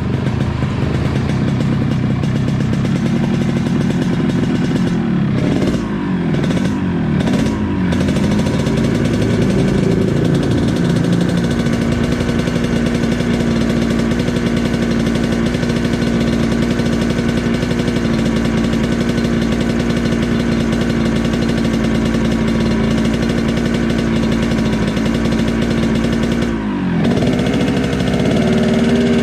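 Yamaha RX-King's single-cylinder two-stroke engine running, its carburettor set rich for a rough 'ngorok' snoring sound. The revs go up and down a few times in the first several seconds, then hold steady and high for a long stretch. Near the end they drop briefly and climb again.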